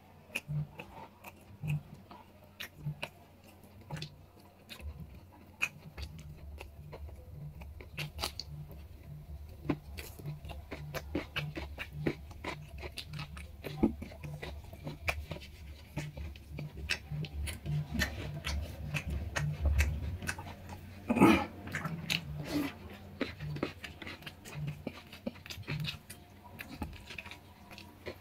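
Close eating sounds of rice and curry eaten by hand: chewing, mouth smacks and fingers mixing food on a plate, heard as many small irregular clicks. A short, louder sound stands out about three-quarters of the way through.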